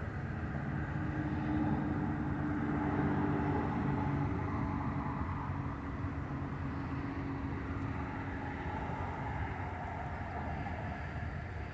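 Steady vehicle rumble with a low hum that fades out about halfway through.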